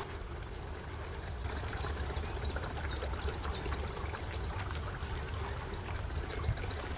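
Wind noise on the microphone, a steady low rumble, with a quick run of about seven short, high peeps from a gosling between about one and a half and three seconds in.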